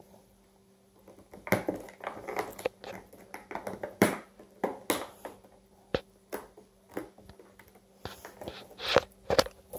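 Cat biting and gnawing at a rigid plastic clamshell container, making irregular plastic crackles and sharp clicks that begin about a second in.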